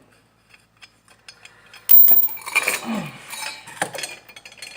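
Metal parts and tools clinking and clattering against the mower: faint ticks, then a loud clank about two seconds in and a run of irregular rattling and knocks as a bolt is worked into its hole.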